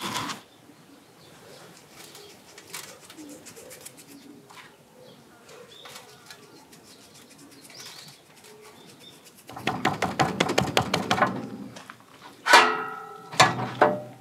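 Hands seasoning a raw tomahawk steak on a wire rack in a stainless steel tray: about two seconds of dense crackly rubbing and pressing, then two loud clanks of the metal rack and tray near the end as the steak is handled. Birds call faintly in the background.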